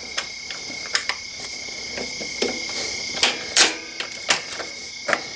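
Irregular small metal clicks and knocks as a motorcycle foot peg, its long mounting bolt and a spacer are handled and wiggled into line on the peg bracket, over a steady faint high-pitched tone.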